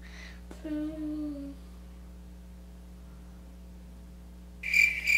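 A child's short thinking 'hmm' about a second in, then near the end a cricket-chirping sound effect starts suddenly, even chirps about two to three a second: the comic 'crickets' that mark an awkward silence with no answer.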